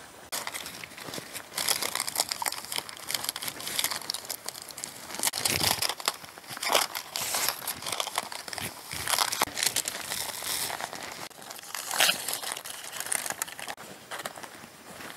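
Aluminium foil tape and a flexible aluminium foil duct crinkling and rustling as they are handled, peeled and pressed around a pipe, in irregular crackles throughout.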